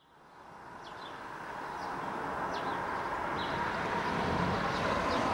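Outdoor ambience fading in and growing louder: a steady background hum with short, high bird chirps every second or so.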